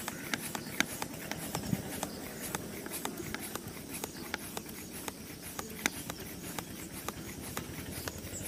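Aluminium mini bicycle hand pump worked in quick, steady strokes, inflating a flat mountain bike tyre: a light click on each stroke, about three a second.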